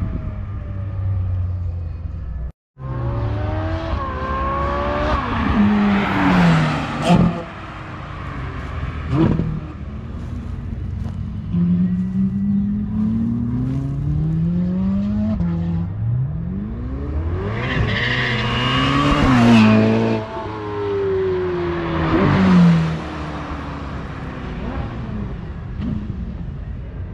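Ferrari 458's 4.5-litre V8 accelerating hard through the gears, its pitch climbing with each gear and dropping at each upshift. This repeats over several full-throttle runs, loudest as the car passes close at about six to seven seconds and again around eighteen to twenty-three seconds.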